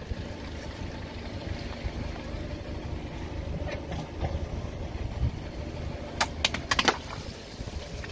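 A car creeping over a row of long water-filled balloons on concrete, its engine running low under a steady rumble. About six seconds in, several balloons burst under the tyre in a quick cluster of sharp pops, with water spraying out.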